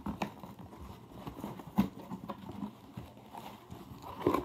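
Cardboard shipping box being handled and opened by hand: irregular rustling and scraping of the cardboard with scattered light knocks, the sharpest one about two seconds in.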